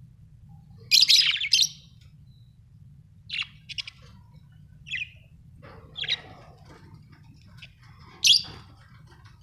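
Pet budgerigars chirping in short, high calls. A loud cluster comes about a second in, scattered chirps follow, and another loud call comes near the end, over a faint steady low hum.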